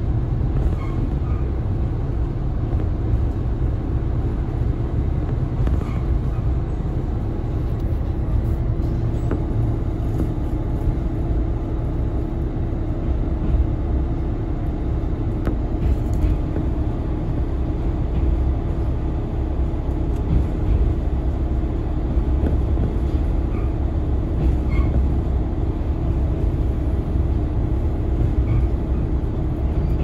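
Inside a KiHa 40 diesel railcar under way: the steady rumble of its diesel engine and the wheels on the rails, with a steady hum running through it.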